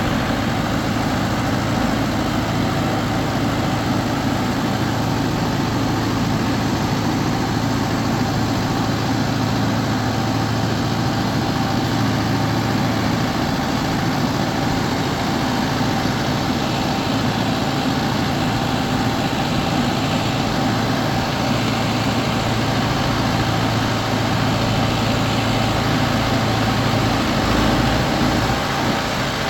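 An engine running steadily, with a constant low hum and a thin, higher steady tone.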